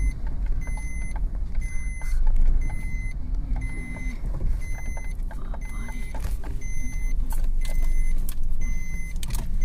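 Inside a moving car's cabin: a steady low rumble from the engine and the road. A short, faint high beep repeats about once a second.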